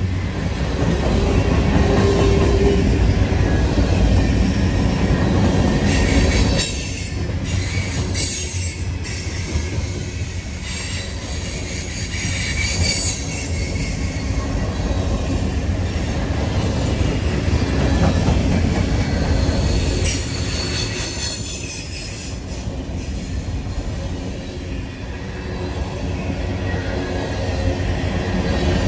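Norfolk Southern freight train cars rolling past with a steady rumble of wheels on rail, broken several times by high-pitched wheel squeal.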